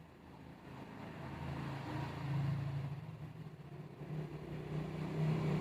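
A low engine hum that grows louder, with a brief dip about three seconds in, like a motor vehicle drawing near.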